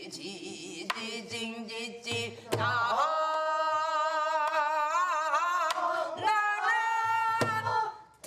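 Korean traditional-style singing: one voice holding long notes with a wide, slow vibrato, over a few low drum beats. The singing drops away just before the end.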